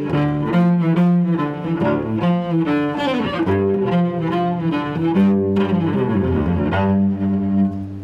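Cello played with a bow: a melody that moves between quick runs of notes and held low notes.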